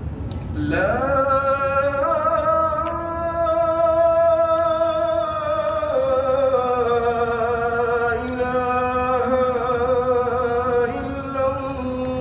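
A man's voice chanting one long, drawn-out melodic line of the Islamic prayer. It slides up about a second in, then is held with slow turns of the melody.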